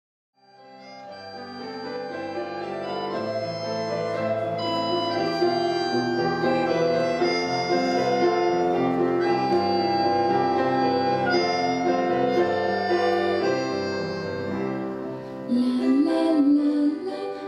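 Instrumental background music fading in with sustained, slowly changing chords. Near the end a singing voice comes in over it.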